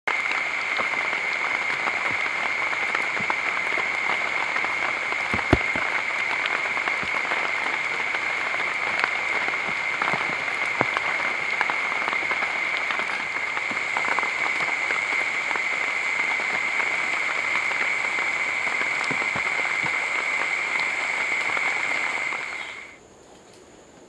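Steady rainforest insect chorus: a constant high-pitched whine over a dense crackling hiss, cutting off sharply near the end. A single low thump about five and a half seconds in.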